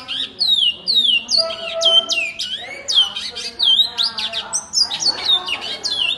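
Male great-billed seed finch (bicudo) singing in a long unbroken phrase: a rapid string of clear whistled notes, several a second, most of them sliding down in pitch.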